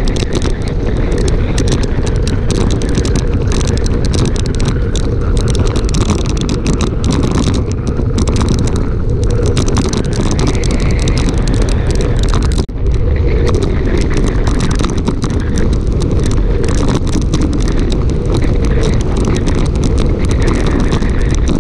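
Loud, steady wind rushing over the microphone of a camera on a bicycle descending at speed, with a brief dip about thirteen seconds in.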